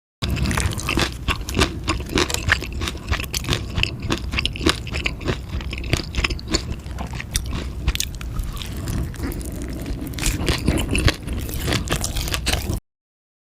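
Close-miked eating: a mouth biting and chewing food, with crunching and many sharp wet clicks. It cuts off suddenly near the end.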